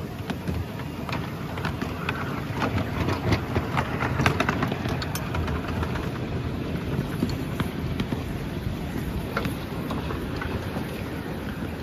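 Exmoor-built miniature steam locomotive running along the track, heard from the cab: a steady low rumble with a scatter of sharp clicks and knocks, busiest a few seconds in.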